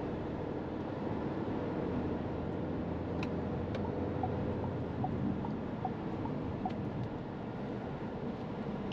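Steady interior road noise of a SsangYong Torres T7 4WD SUV driving at around 60–80 km/h: a low tyre and engine rumble with wind noise. A few faint short high blips come in about halfway through.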